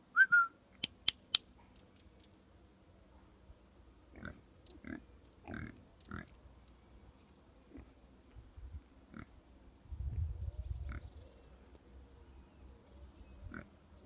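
Pig giving short, separate grunts every second or few seconds as it noses in the grass. A few sharp clicks about a second in are the loudest sound. A faint high chirp repeats about twice a second through the second half, and there is a brief low rumble near the middle.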